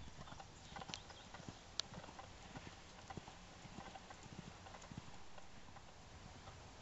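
Faint hoofbeats of a horse cantering on sand arena footing: an uneven run of soft thuds, with one sharper click a little under two seconds in.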